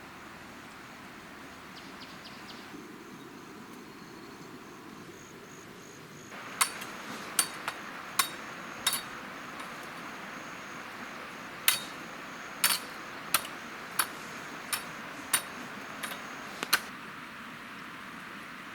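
About a dozen sharp knocks in two runs, roughly one every two-thirds of a second, like hammer or chopping strikes, over a steady hiss.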